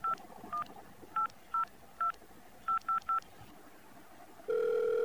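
Smartphone keypad dialling tones: about eight short two-note beeps at an uneven pace as a phone number is keyed in. Near the end a steady calling tone starts as the call goes through.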